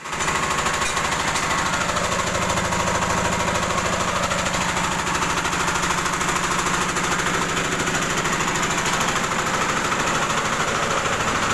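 Horizontal single-cylinder diesel engine running steadily with an even, rapid knock, driving a rice huller.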